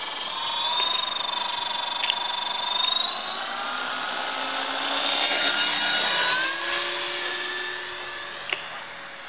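Battery-powered RC helicopter's electric motor and rotor whining as it lifts off and climbs, the pitch of the whine sliding up and down with the throttle. A short sharp click near the end.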